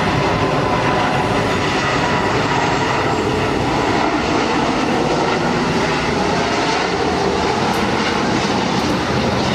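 Airbus A330-300's Rolls-Royce Trent 700 jet engines on final approach, landing gear down: loud, steady jet noise with faint steady whining tones.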